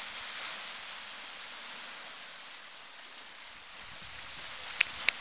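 Small waves washing onto a cobble beach, a steady surf hiss. Two sharp clicks come near the end.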